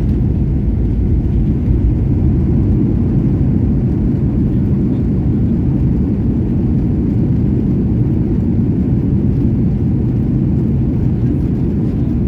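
Steady low rumble of a Boeing 737-800 heard from inside the passenger cabin: engine and airflow noise.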